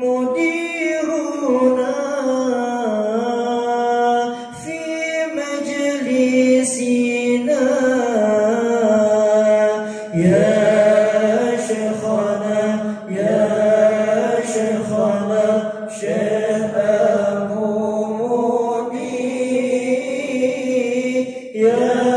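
A syair, a devotional poem in honour of a religious teacher, chanted in long, wavering held notes that slide between pitches. A louder, fuller phrase begins about ten seconds in.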